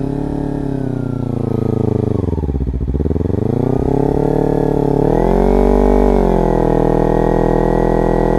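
Kawasaki Ninja 300's parallel-twin engine revving hard in a burnout on dirt, the rear tyre spinning. The revs rise, dip about two and a half seconds in, then climb again and hold high and steady from about five seconds in.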